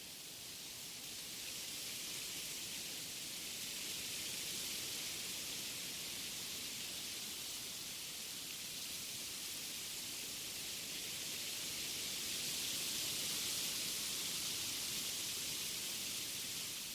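Wind blowing through forest trees: a steady, airy rushing of leaves that swells gently a couple of seconds in and again near the end.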